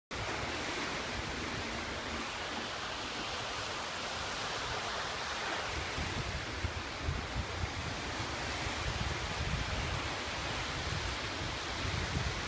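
Small waves washing onto a sandy shore in a steady hiss of surf, with gusts of wind buffeting the microphone from about halfway through.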